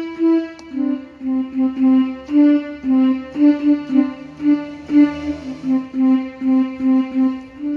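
Casio CT-X700 digital keyboard playing a single-line melody in one of its built-in instrument voices, the notes coming about two to three a second.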